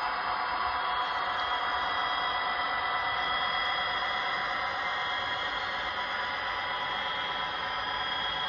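OO gauge model diesel locomotive running with DCC sound, its decoder playing a steady diesel engine drone with a high whine through the model's small speaker.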